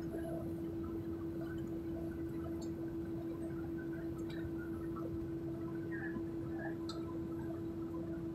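Steady cabin noise inside a jet airliner taxiing on the ground: a constant single-pitched hum over a low rumble, with a few faint ticks.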